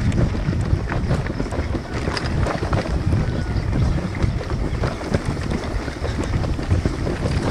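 Wind buffeting the microphone over a steady low rumble, with frequent small rattling knocks as the bicycle rolls over a rough dirt road.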